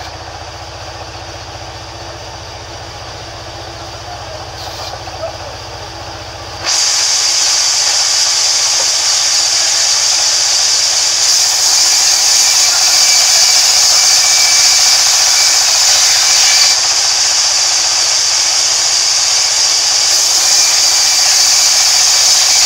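Large vertical band saw running, then about a third of the way in the blade bites into the timber and a much louder, steady hissing cutting noise takes over as a plank is fed through.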